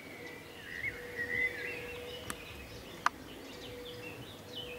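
Birds chirping and twittering in short gliding calls, over a faint steady hum. Two sharp clicks come a little over two and three seconds in.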